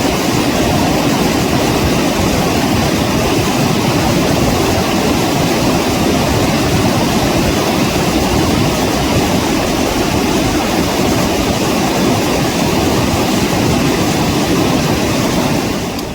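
Fast mountain river rushing over rapids: a loud, steady roar of water with no let-up.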